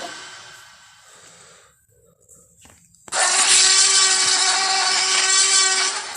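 Tyrannosaurus rex roar sound effects: a harsh, rasping roar fades out over the first two seconds. A second roar breaks in about three seconds in, held at one steady pitch for about three seconds, then cuts off.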